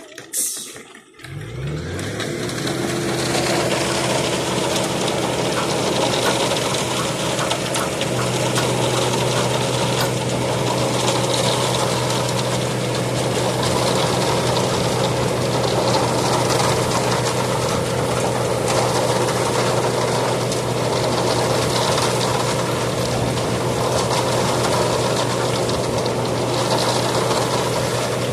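An engine starts about a second in, spins up, and then runs steadily, its low note growing stronger about eight seconds in.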